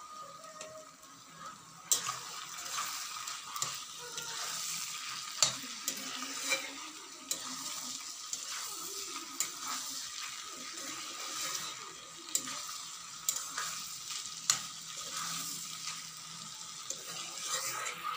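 Bamboo shoot curry sizzling in a black kadai while a long metal spatula stirs it, knocking and scraping against the pan at irregular intervals. The sizzling gets louder about two seconds in.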